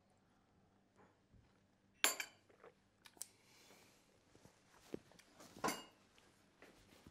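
A china coffee cup set down on its saucer with a sharp clink about two seconds in, followed by smaller clinks, a short rustle of a jacket, and another sharp knock near six seconds.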